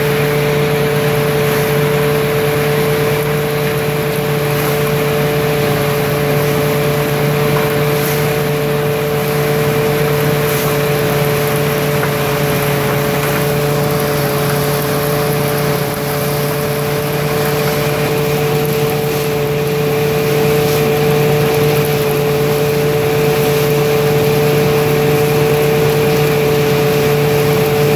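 Motor-driven threshing machine running steadily with a strong, even machine hum while dry Job's tears stalks are fed into it.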